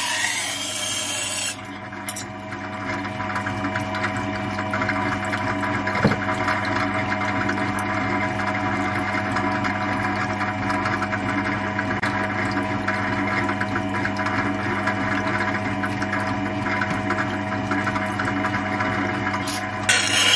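Motor-driven sharpening wheel running with a steady hum while the chipped edge of a Baccarat Damashiro knife is ground against it, wet. The harsher high grinding hiss drops away about a second and a half in and comes back near the end, with a single click about six seconds in.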